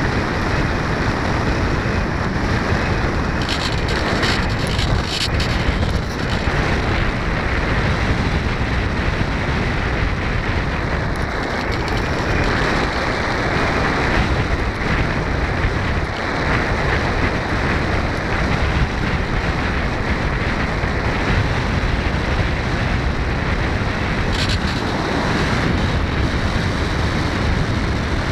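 Steady, loud rush of wind over the onboard camera microphone of a radio-controlled model plane in flight.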